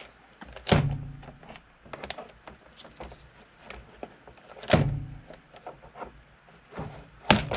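Hand pop-rivet gun setting a rivet through the air scoop into the motorcycle airbox cover: three sharp clacks, the first about a second in, one near the middle and one near the end, with softer clicks in between.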